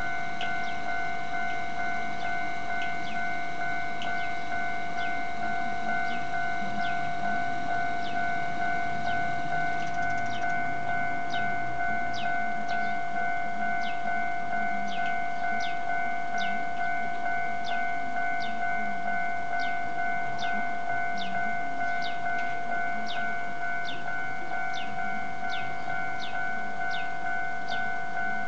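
Japanese railway level-crossing warning bell ringing in a steady repeating rhythm, about two strikes a second.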